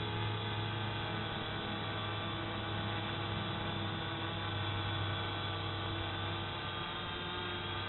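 Quadcopter on a HoverThings HT-450 frame hovering, its brushless motors and propellers giving a steady, many-toned hum as it holds position in GPS loiter mode.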